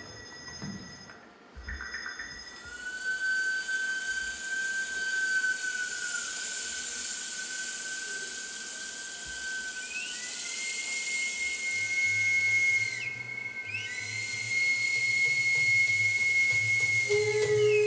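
Ambient soundscape music: a hissing high wash with long, steady whistling tones that step up in pitch about halfway through. A low hum joins about two-thirds of the way in, and a lower held tone enters near the end as the sound grows louder.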